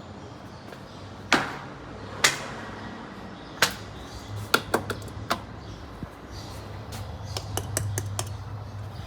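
A series of sharp, irregular clicks and knocks over a steady low hum, with a quick run of three clicks about four and a half seconds in and several more near the end.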